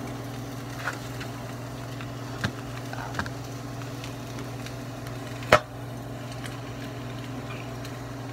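Chicken frying in a pan, a faint sizzle over a steady low hum, with a few clicks of a metal utensil against the pan, the loudest about five and a half seconds in.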